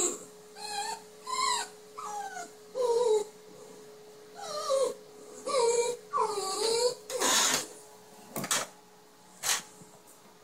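Dachshund puppy whining and 'talking' in a run of about nine short moaning calls that bend up and down in pitch, begging for a bone. The calls give way to three short noisy bursts of breath or rustling near the end.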